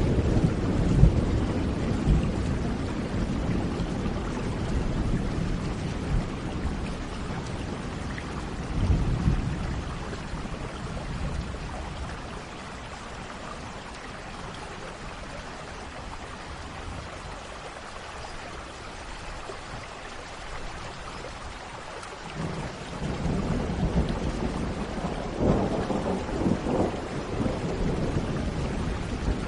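Steady rain with rolling thunder: a deep rumble fading over the first few seconds, a brief swell around nine seconds, then a new roll of thunder building from about twenty-two seconds with several louder peaks near the end.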